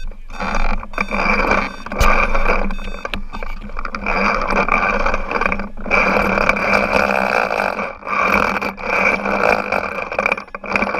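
Small engine of a 1/5-scale RC truck running while the truck sits still, close to the onboard camera. It makes a steady buzzing drone that cuts out briefly a few times.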